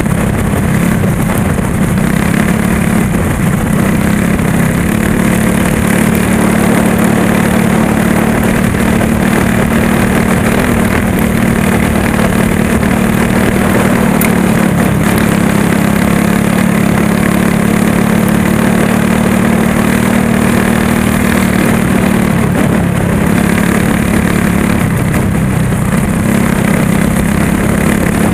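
Go-kart engine running hard under racing load, loud and close from on board the kart, its pitch holding fairly steady with a brief dip near the end.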